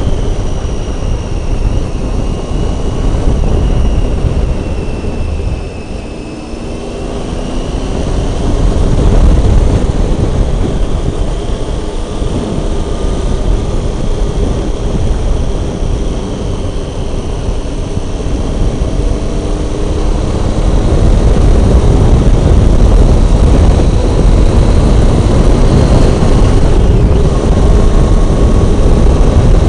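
Triumph Tiger 800 three-cylinder motorcycle engine running under way, with heavy wind rush on the microphone. The engine note eases off and quietens about six seconds in, then pulls back up. It is louder again from about two-thirds of the way through.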